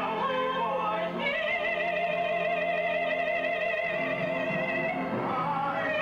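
A theatre singer holds one long note with a wide vibrato over sustained orchestral accompaniment, after a short rising phrase about a second in; the note ends near the end.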